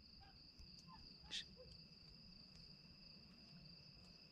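Near silence with a faint, steady high chirring of night insects, and one soft click about a second and a half in.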